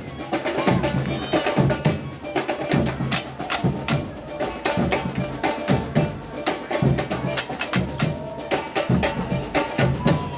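Samba batucada drum ensemble playing a steady, driving groove: deep bass drum hits under a dense stream of sharp, high percussion strokes.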